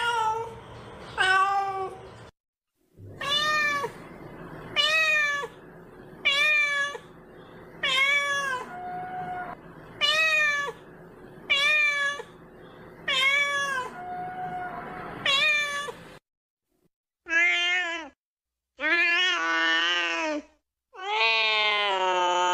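Kitten meowing again and again in short calls that rise and fall, about one every one and a half seconds, then a few longer, drawn-out meows near the end: a kitten calling for its mother.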